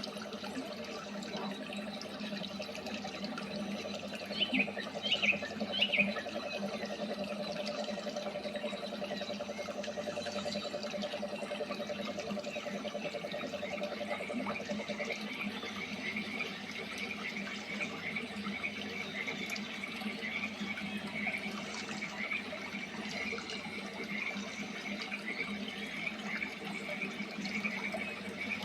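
Waterfall running steadily with birds singing over it: a few loud chirps about five seconds in, then quick, repeated chirping from about halfway on.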